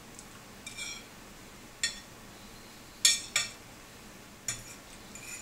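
Steel knife and fork clinking against a ceramic dinner plate while a grilled pork chop is cut: about six short, separate clinks, the loudest a pair about three seconds in.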